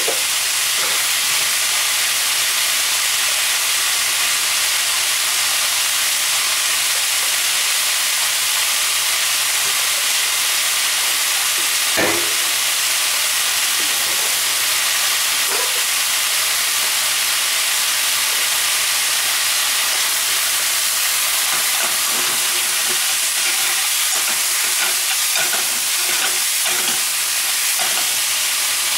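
Bitter melon, pork and tofu sizzling steadily in a frying pan, with a single sharp click about twelve seconds in. Near the end a wooden spatula scrapes and knocks in the pan as the food is stirred.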